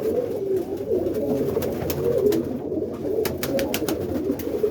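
Domestic roller pigeons cooing continuously in the loft, several birds overlapping in a low warbling murmur. A cluster of sharp taps sounds between about two and three and a half seconds in.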